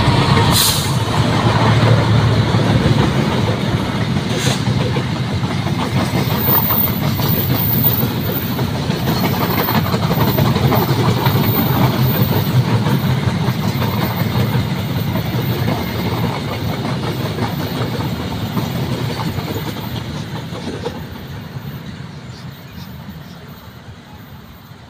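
Passenger train running past close by on the rails: a steady rumble and clatter of wheels and cars, with a couple of sharp clicks in the first few seconds. It fades away over the last several seconds as the train moves off down the line.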